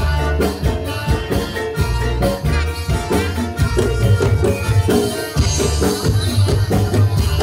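Loud accompaniment music for a warok folk dance, led by hand drums struck in a quick, steady rhythm with pitched instruments over them.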